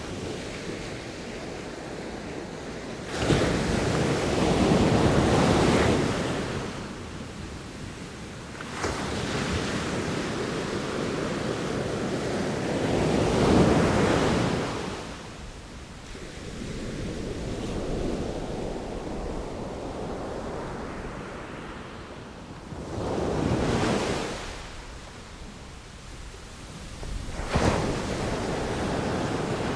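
Sea waves breaking and washing ashore, coming in about five surges that swell quickly and then slowly fall away.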